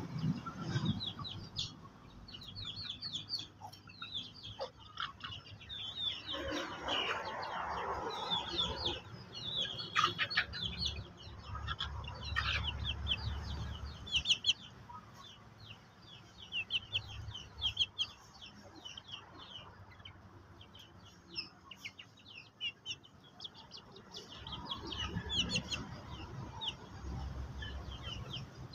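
Chickens clucking on and off, against a steady run of short high chirps.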